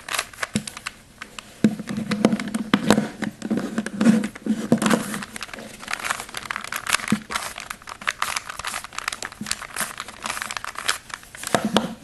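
A 3x3 Rubik's Cube's plastic layers being turned quickly by hand: a fast, irregular run of clicks and rattles as the faces snap round.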